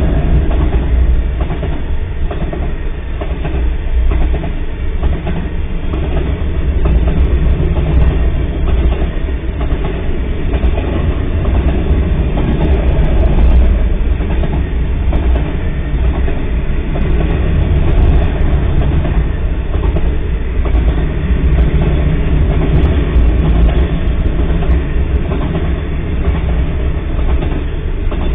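Freight train cars rolling steadily past at a grade crossing: a continuous heavy rumble of steel wheels on the rails.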